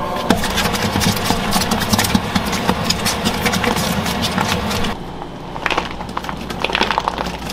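Spiral dough mixer running, its hook churning and slapping thick chocolate bread dough: a steady motor hum with rapid irregular clicks. About five seconds in the sound drops to a quieter hum with scattered light taps as cubes of butter are tipped into the bowl.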